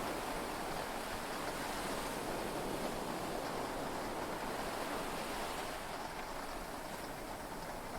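Heavy rain and sea waves heard from inside a yacht's cabin, a dense, even wash of noise with no thunder, easing slightly about six seconds in.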